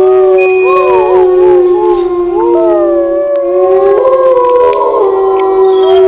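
Dogs howling together: several long overlapping howls, some held on a steady pitch and others wavering up and down.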